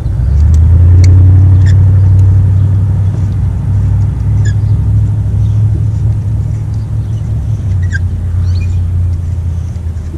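Low, steady rumble of a motor vehicle running nearby, swelling in about half a second in and fading near the end, with a few faint light clicks.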